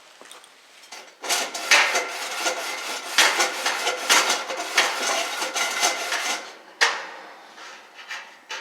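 Metal burner assembly of a wick-style kerosene heater being worked side to side on its seat, scraping and rattling for several seconds, then one sharp metal knock. Rocking the burner from side to side after lighting settles it evenly over the freshly cleaned wick.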